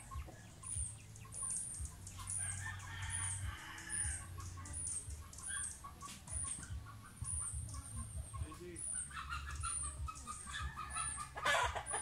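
Free-range chickens clucking, with a rooster crowing, over a short high chirp that repeats steadily.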